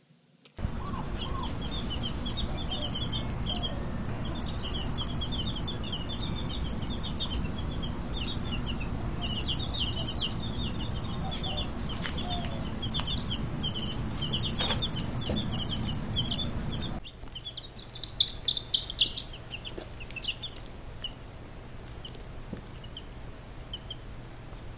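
Baby chicks peeping, many short high peeps in rapid succession over a steady low rumble. About seventeen seconds in, the rumble drops away and the peeps become sparser, with a louder flurry soon after.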